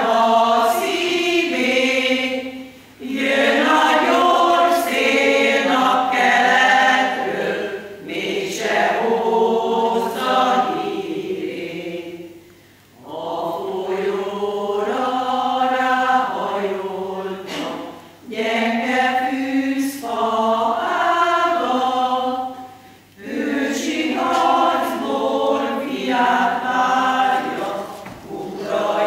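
Women's choir singing in unison-and-harmony phrases about five seconds long, each followed by a short breath pause before the next line.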